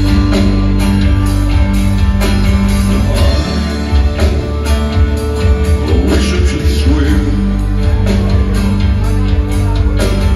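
A live band playing, heard from among the audience: plucked and strummed strings and drums over long held low notes, with a voice singing partway through.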